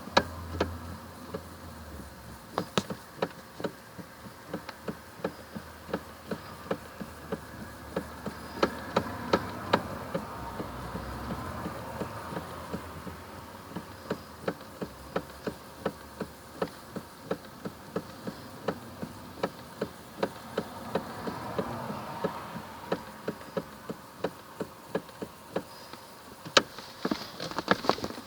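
Toyota Camry's steering knocking: a run of sharp, irregular knocks, two to four a second, over a steady hum. The knock is the steering fault the owner is trying to track down.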